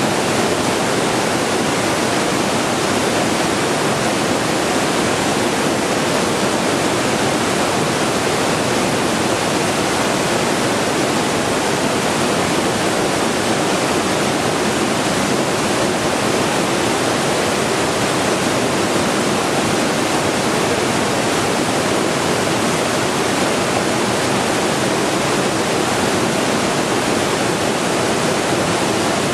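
Steady white noise for a baby's sleep: an even, unchanging hiss at constant loudness.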